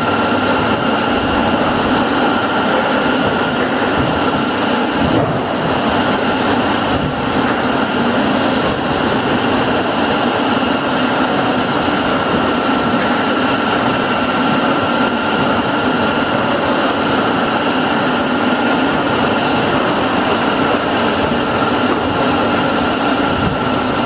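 Automatic multi-nozzle motor-oil filling machine running on its production line: a steady mechanical drone with a constant high whine, and a few faint short hisses and clicks.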